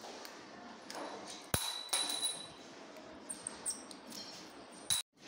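Small steel latch and lock fittings clicking and clinking as they are handled and fitted together: a few sharp metal clicks, some with a brief high ring, the loudest about a second and a half in. The sound cuts off abruptly near the end.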